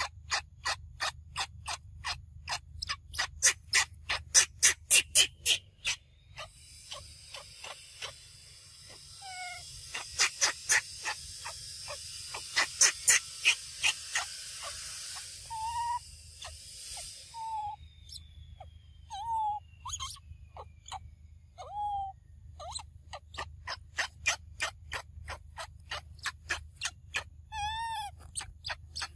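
A young macaque sucking and smacking on its fingers: sharp wet clicks, about three a second, all the way through. A few short squeaks that rise and fall are heard from the middle on, and a steady hiss runs for about ten seconds in the middle.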